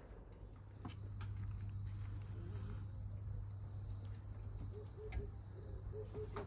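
Crickets chirping in a steady, pulsing high trill, over a low steady hum that comes in about a second in.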